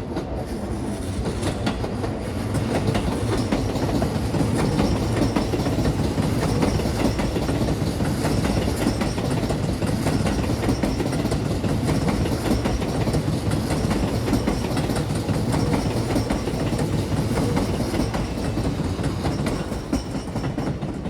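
Seibu Railway electric commuter train passing close by, its wheels clattering over the rail joints in a long, steady run of clicks that swells about two seconds in.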